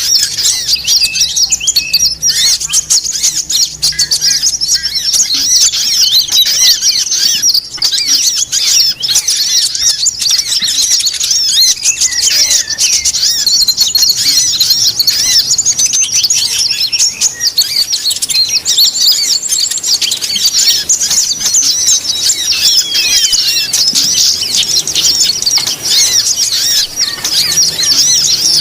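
Dense chorus of many small songbirds chirping and twittering without pause, high-pitched and overlapping, with a few falling whistled notes near the end: a mixed 'noisy bird' lure recording made to draw wild birds in.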